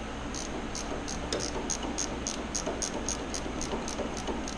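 Ratchet wrench clicking in an even run of about four clicks a second as engine-mount bolts are snugged down, over a steady background hum.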